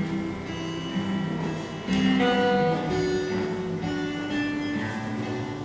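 Slow instrumental music led by plucked guitar, with held notes changing every half second or so.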